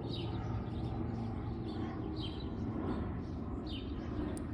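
A bird chirping in short falling notes, one about every second and a half, over a steady low background hum.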